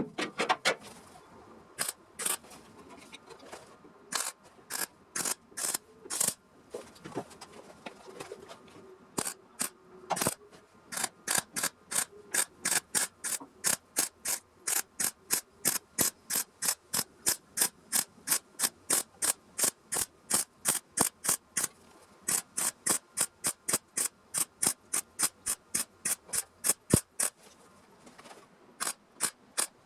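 A hand tool working rusty sheet-metal body panel in quick repeated rasping strokes. The strokes come sparsely at first, then settle into a steady two to three a second, with a short pause near the end.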